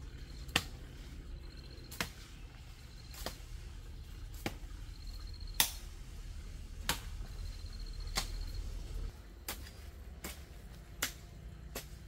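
Long-handled hoe chopping into dry, clumpy soil: sharp thuds about once a second, about a dozen in all. A faint high chirping trill comes and goes in the background.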